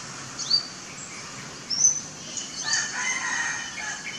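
A rooster crows once, a held call of about a second and a half starting past the middle, over short, high chirps from small birds.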